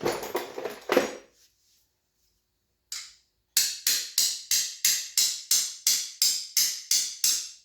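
Hand tools working a fastener on a dirt bike engine: a short clatter, then about a dozen sharp, evenly spaced metallic clicks, roughly three a second.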